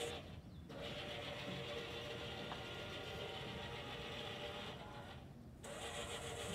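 Small electric drive motors of a wheeled delivery robot whirring steadily as it drives, cutting out briefly twice, about half a second in and again near the end.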